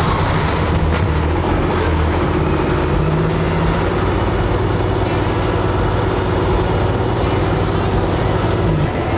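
Heavy tow truck's diesel engine running steadily as the truck drives slowly, with tyre noise on a wet road and a thin, faint high whine above the drone.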